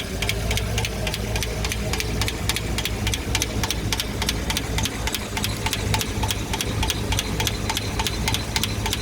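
V-engine idling with a valve cover off, its valve train ticking sharply and evenly about five times a second, the valve-train noise the owner blames on a hydraulic lifter that no longer runs well on the camshaft.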